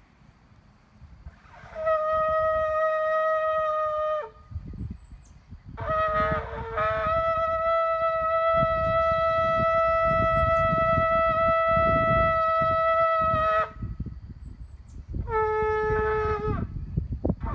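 Shofar, an animal horn, blown in three blasts. The first is short and held on one note, dropping at the end. The second starts on a lower note, jumps up, and is held for about seven seconds. The third begins low near the end.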